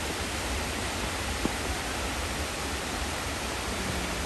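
Shiraito Falls, a waterfall, giving a steady, even rush of falling water, with one brief click about a second and a half in.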